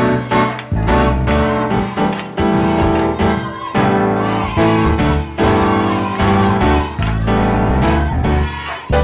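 Music led by a keyboard, with full held chords and a steady beat.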